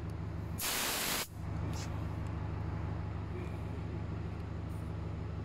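A vehicle engine running steadily. About half a second in comes a loud, sharp hiss of released air lasting about half a second, which stops abruptly.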